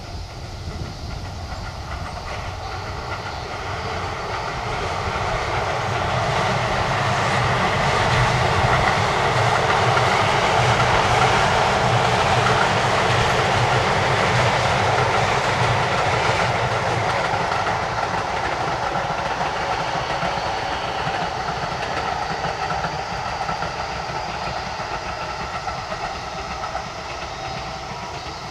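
Keisei 3100-series electric commuter train passing close by on the rails, growing louder to a peak about ten seconds in and then fading as it moves away.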